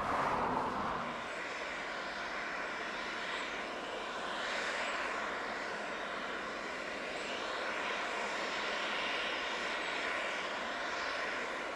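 Aircraft engine noise: a steady rushing sound that rises sharply at the start and whose tone slowly sweeps up and down.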